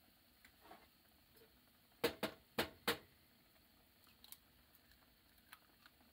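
Raw egg tapped four times against the rim of a ceramic bowl to crack its shell, sharp clicks close together, followed by a few faint clicks as the shell is pulled open.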